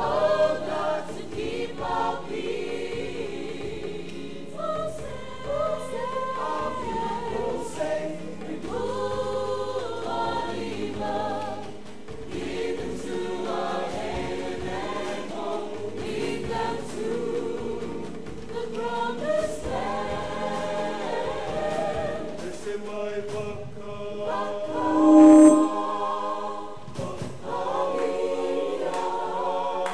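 Mixed group of men and women singing unaccompanied in harmony, choir-style, with long held notes. One brief, much louder tone stands out about 25 seconds in.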